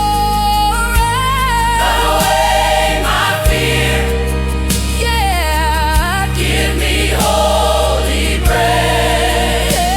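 AI-generated gospel worship music: choir voices carry a wavering melody over sustained low bass notes, with a sharp hit about every two and a half seconds.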